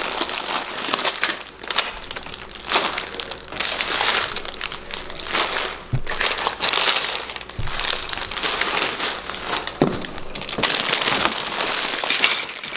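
Plastic bags of LEGO pieces crinkling and rustling as they are pulled one after another out of a cardboard box and piled up, a continuous irregular crackling.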